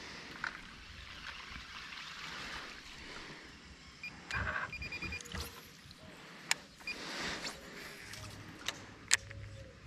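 River water lapping and sloshing at the water's edge, with a few sharp clicks.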